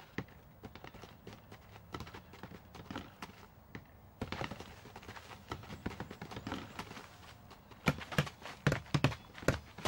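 Animated sound effects of a football warm-up: scattered footsteps and light taps, then a quick run of about six louder thumps near the end.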